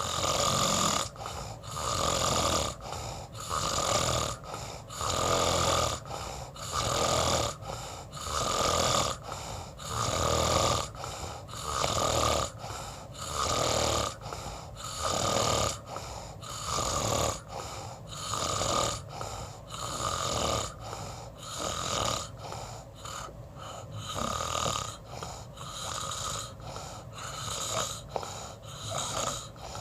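Snoring in a steady rhythm, a rasping breath roughly once a second.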